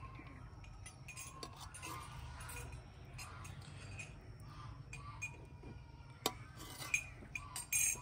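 Metal serving spoon clinking and scraping against a pot and a plate as cooked rice pulao is dished out. There are scattered light clinks, with a few sharper ones near the end.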